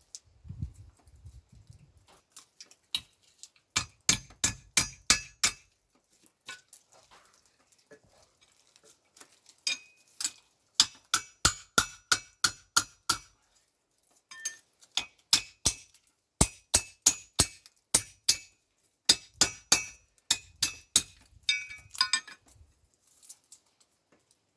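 Hand hammer striking a flat steel bar on an anvil, cold forging it into a bracket: runs of sharp blows at about three to four a second, each with a bright metallic ring, broken by short pauses.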